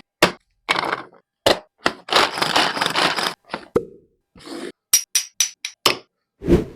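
Cooking preparation sounds: a string of sharp knocks and taps, with a noisy stretch of about a second and a half near the middle, then a quick run of short ringing clinks.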